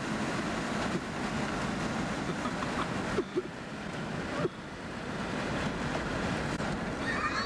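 Steady rush of wind buffeting the microphone from a car moving at speed, mixed with road and rolling noise, as it paces a passenger train.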